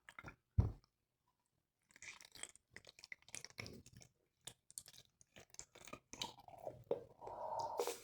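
Sticky crackling and squelching as the gooey filling of a cut-open squishy toy is handled, with many small clicks and a low thump about half a second in.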